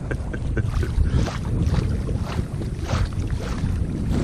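Wind buffeting the microphone in a low rumble, with choppy wavelets splashing and slapping irregularly against the side of a small PVC inflatable boat.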